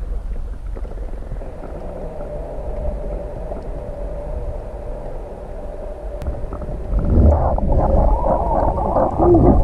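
Muffled low rumble of water heard through a camera held underwater. About seven seconds in it turns louder and busier, with churning and sloshing as the magnet and its catch are hauled up toward the surface.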